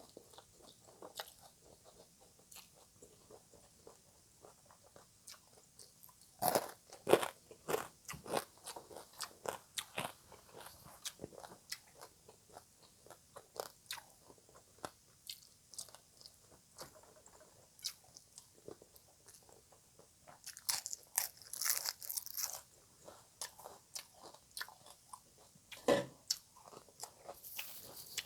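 Close-miked chewing and crunching of papaya salad, the crisp shreds of raw green papaya crackling between the teeth. Bites come as quick clicks, with louder bursts of crunching about a quarter of the way in, again about three quarters in, and once more near the end.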